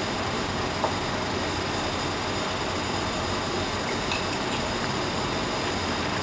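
Steady mechanical hum and hiss of kitchen machinery. A light clink about a second in and another about four seconds in, as a metal spoon scoops mince from a ceramic mug.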